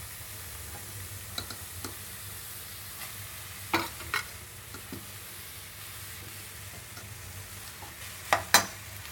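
Ground tomato masala sizzling in oil in a pan, with a spoon scraping and knocking against the pan as cooked rice is stirred in. A steady sizzle runs throughout, broken by scattered knocks, the loudest about four seconds in and twice near the end.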